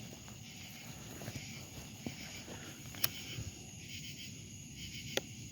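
Crickets chirring steadily in the background, with two sharp clicks, about three and five seconds in.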